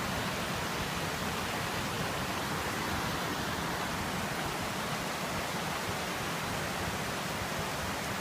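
Steady rushing of a waterfall, an even wash of water noise with no change.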